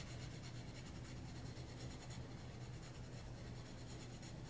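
Castle Art Premium Soft Touch colored pencil shading on a colouring-book page: faint, steady scratching of quick small strokes of the soft lead across the paper.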